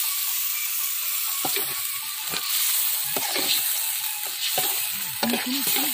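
Pressure-cooked chicken sizzling in hot masala in a large metal pot, a steady hiss. From about a second and a half in, a metal ladle scrapes and knocks against the pot at irregular intervals as the chicken is stirred.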